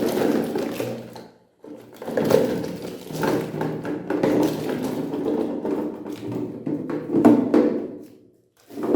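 Electric meat grinder running and grinding jelly candies: a steady motor hum with irregular clicks. It drops out briefly about a second and a half in and again near the end.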